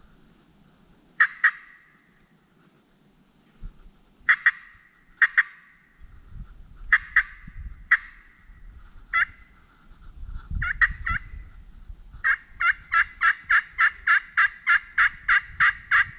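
Turkey yelping: short, sharp yelps in twos and threes, then a fast even run of about four yelps a second near the end.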